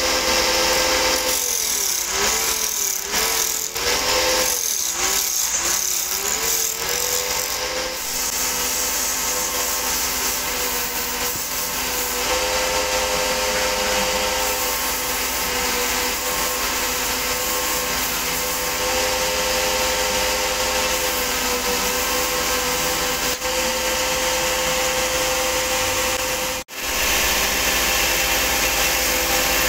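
Belt-driven wood lathe running steadily while a hand-held chisel scrapes and cuts a spinning wooden disc, with a hiss of cutting over the machine's hum. About two seconds in, the hum wobbles up and down in pitch for several seconds before settling.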